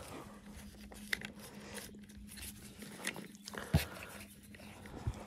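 Faint scattered clicks and rustles of a plastic wiring connector and its cables being handled and pushed through a car-seat frame, with one sharper click near the end, over a low steady hum.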